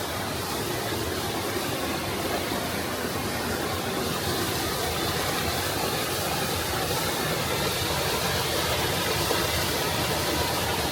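Steady rushing noise of a large waterfall, falling water heard close by.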